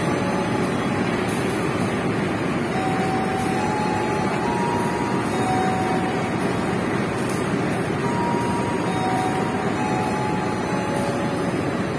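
Diesel-electric locomotive idling at the platform, a steady engine hum with no change in level, while it waits to depart. A few faint short high tones come and go over it.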